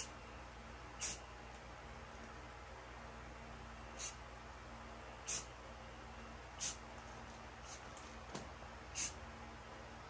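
Aerosol spray-paint can giving about seven short hissing bursts at irregular intervals, dabbing camouflage paint onto a rifle, with a small click about eight seconds in.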